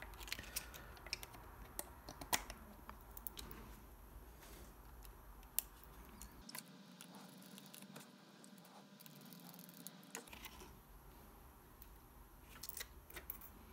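Light clicks and taps of hard plastic as a 3D printed dashboard part and a micro servo are handled and pressed together. The clicks come thick in the first few seconds, thin out in the middle, and return in a short cluster near the end.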